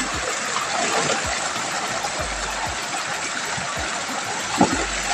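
Flood-swollen river water rushing steadily past, with a few low rumbles and a single sharp knock near the end.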